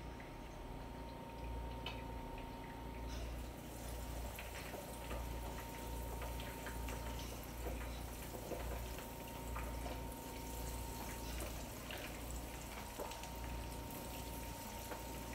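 Breaded zucchini spears sizzling in hot oil as they are laid into the pan, a steady hiss with many small pops that starts about three seconds in.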